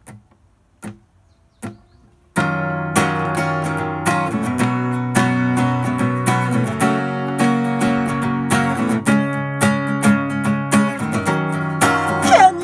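Acoustic guitar with a capo, strummed in a steady rhythm that starts suddenly about two seconds in, after a few faint clicks. A man's singing voice comes in right at the end.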